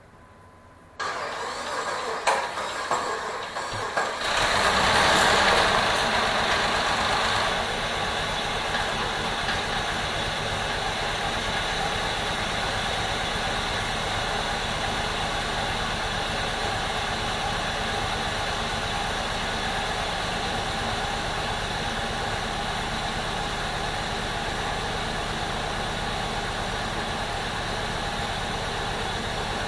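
Freshly swapped-in Chrysler 3.7-litre V6 of a 2002 Jeep Liberty on its first start: the starter cranks it from about a second in, it catches after about three seconds and revs up briefly, then settles into a steady idle.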